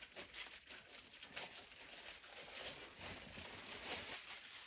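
Packaging rustling and crinkling as a purse is unwrapped by hand: a continuous run of small, irregular rustles.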